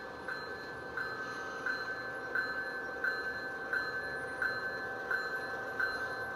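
G-scale model diesel locomotives' onboard sound running as the freight train approaches, a steady electronic hum with a short ringing ding repeating about every 0.7 seconds, like a locomotive bell.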